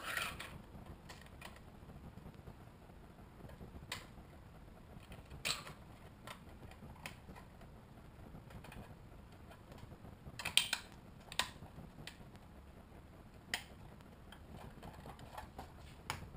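Scattered small clicks and scrapes of a 3D-printed plastic part being cleaned up by hand, support bits worked off it, with a short cluster of sharper clicks about ten seconds in.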